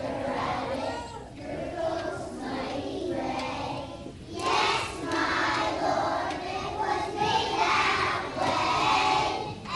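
A large group of young children singing together, a little ragged, getting suddenly louder about four seconds in.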